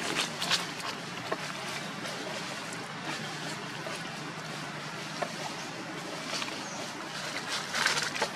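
Steady outdoor background noise, with brief rustles and crackles of dry leaf litter as macaques move over it. The loudest rustling comes just before the end.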